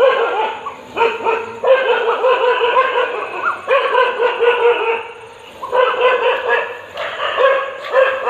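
Dog barking in rapid runs of barks, each bout lasting a second or two with short pauses between.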